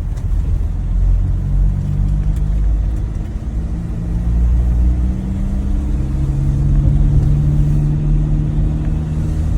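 Ford Transit van on a test drive, its engine running steadily with the engine note shifting twice. The van is driving normally, its clutch just repaired and no longer sticking.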